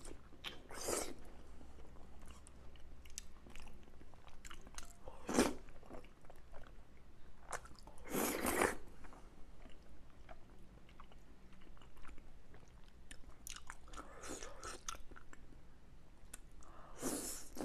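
Close-up eating sounds: wet chewing and biting of soft braised pork belly, with small mouth clicks throughout and several louder bites spread through. About eight seconds in comes a longer slurp of noodles.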